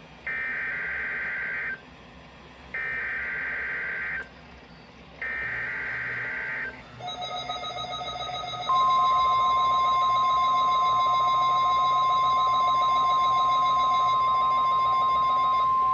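NOAA Weather Radio alert signalling for a Required Weekly Test. It opens with three identical bursts of warbling SAME digital header data, each about a second and a half long. A buzzier alert tone follows about seven seconds in, and then the steady, louder 1050 Hz warning alarm tone begins about nine seconds in.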